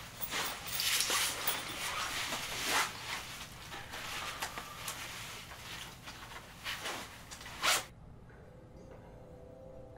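Camouflage military bags, a canvas duffel and a backpack, rustling and scraping as they are handled and opened on a bed, with a sharp knock a little before eight seconds in. Quiet music follows.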